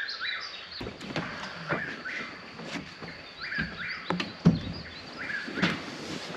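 A bird repeating the same short call about once a second, with occasional sharp knocks and clicks from close by.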